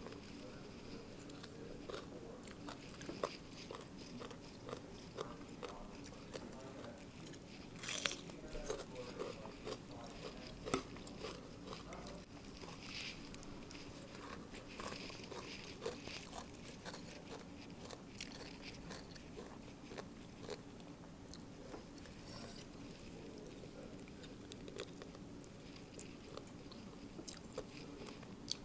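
Chewing and crunching of shredded green papaya salad (Thai som tam), with small clicks of a fork against the plate and a few louder crunchy bites.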